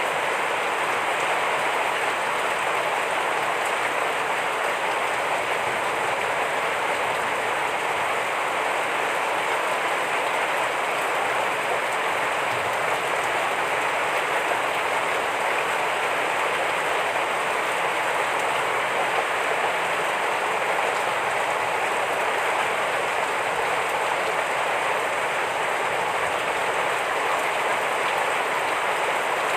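Heavy rain falling steadily, a constant even hiss of dense drops.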